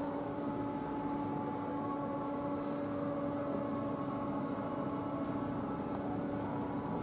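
Nissan Skyline GT-R R33's RB26DETT twin-turbo straight-six idling steadily, an even hum with a few held tones.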